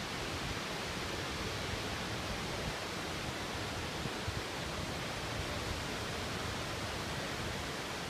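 Steady, even rush of a tall waterfall.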